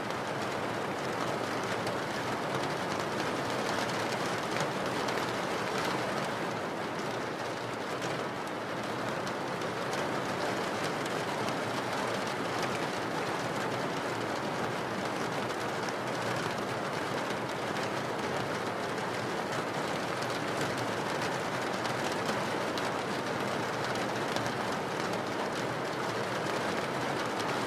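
Steady rain falling on a window: an even hiss with faint, scattered taps of single drops.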